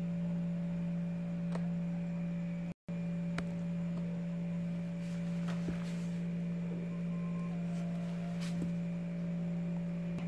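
A steady low hum with fainter steady higher tones above it, and a few faint clicks. The sound cuts out for an instant nearly three seconds in.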